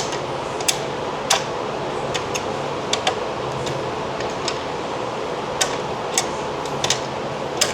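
Scattered sharp metal clicks, about one every half-second to second, as a 17 mm wrench works the bolt of a light mount bracket, over a steady low background hum.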